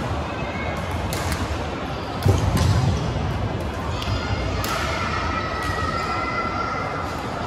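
Busy badminton hall: scattered sharp shuttlecock strikes and footfalls on the wooden court floor from several courts over a steady murmur of the hall, with a heavy thud a little over two seconds in.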